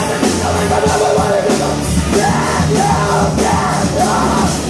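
Live punk rock band playing loud: electric guitar and a drum kit with regularly crashing cymbals, under a singer yelling into the microphone.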